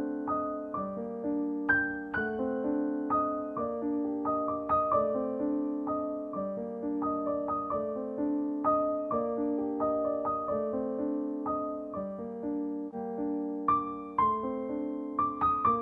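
Background piano music: a melody of struck notes over chords.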